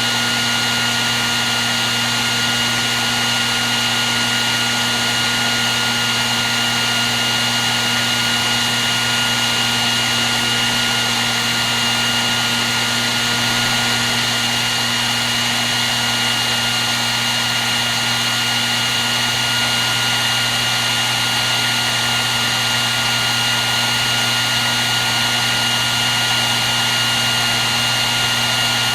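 Hair dryer running steadily: an even rush of blown air with a low motor hum and a steady high whine.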